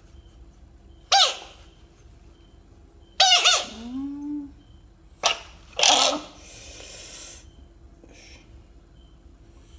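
Frog giving short, high squealing calls three times, with a sharp click and a brief hiss between the last two.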